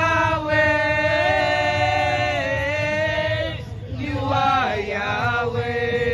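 Worship song sung by a small group, a woman's voice into a handheld microphone with others joining, in long held notes. The singing breaks off briefly a little after halfway, then comes back with another long held note.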